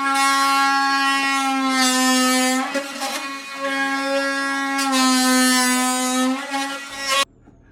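A loud, horn-like held note at one steady pitch, sounded as two long notes with a short break about three seconds in. It cuts off suddenly near the end.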